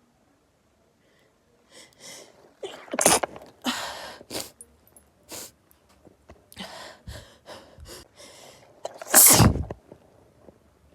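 A person's rapid sneezing fit set off by perfume: a quick run of sneezes starting about two seconds in, the loudest one near the end.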